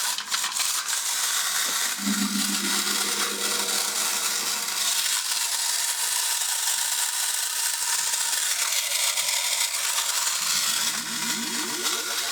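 Clockwork spring motor of a plastic windup toy robot whirring steadily as it runs, walking and turning its radar dish, with a few ratchet clicks of the winding key near the start.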